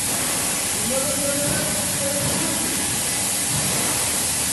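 CNC diamond-cut rim lathe machining an aluminium wheel: a steady, even hiss.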